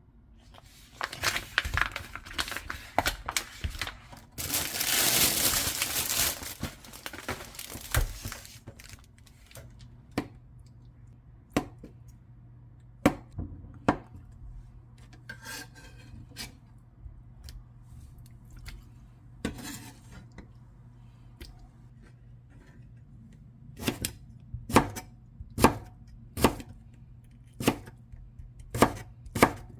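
Kitchen food-preparation handling sounds: crinkling and a long tearing of packaging early on, then scattered clicks and knocks of utensils and dishes, with a run of sharp knocks near the end.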